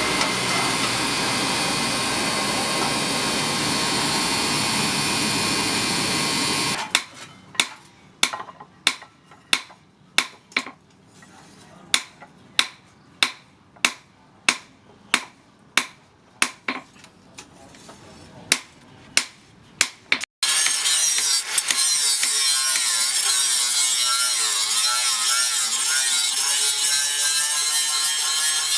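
A steady rushing noise. Then, about seven seconds in, a run of single hammer blows on metal, roughly one or two a second with uneven gaps. Then, after an abrupt cut, a steady rasping, grinding noise.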